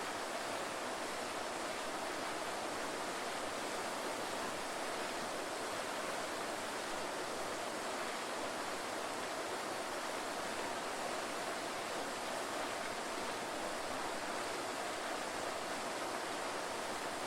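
Waterfall: a steady rush of falling water, with no distinct splashes or changes.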